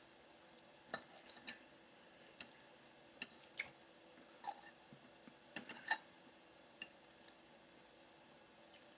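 Metal fork clicking and scraping against a ceramic plate while eating, with chewing in between: scattered short, sharp clicks at irregular intervals.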